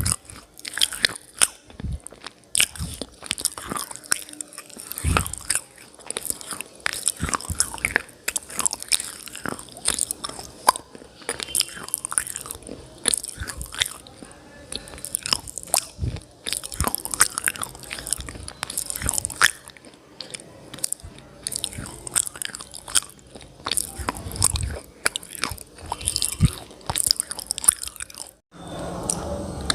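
Close-up biting and chewing of hard, brittle mineral pieces: a fast, uneven run of sharp crunches.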